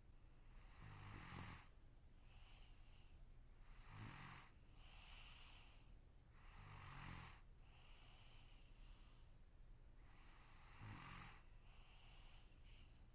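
A sleeping person snoring quietly: four snores on the in-breath, about three to four seconds apart, each followed by a softer, hissing out-breath.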